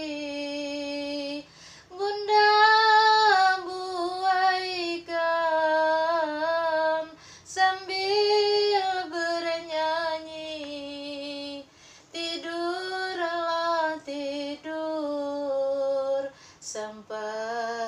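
A woman's voice singing a Malay nandong lullaby, drawing the words out into long, slowly wavering notes in several phrases with short breaths between.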